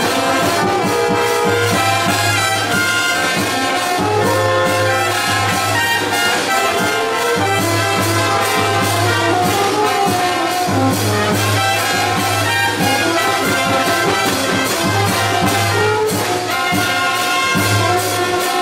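Colombian brass band music, porro style: trumpets and trombones carry the tune over a steady drum beat and a low brass bass line.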